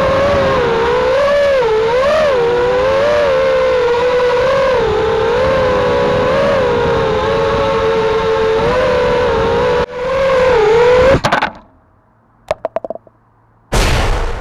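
Eachine Wizard X220 quadcopter's brushless motors whining in flight, the pitch wavering up and down with the throttle, then a clatter and a sudden cut-off about eleven seconds in as the quad comes down. After a couple of seconds of a few light knocks, a loud explosion sound effect bursts near the end and dies away slowly.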